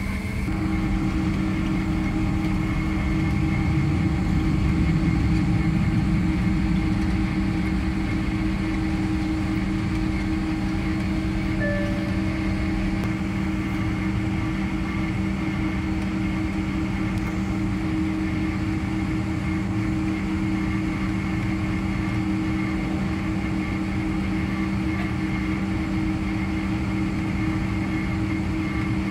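Steady drone inside the cabin of a Boeing 767-300ER taxiing on its jet engines, with a constant low hum and a slight swell a few seconds in.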